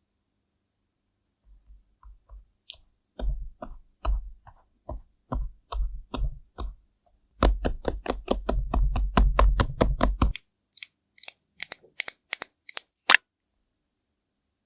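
ASMR makeup sounds: a run of quick taps and knocks that thickens into a dense patter, then a few sharp, crisp clicks near the end.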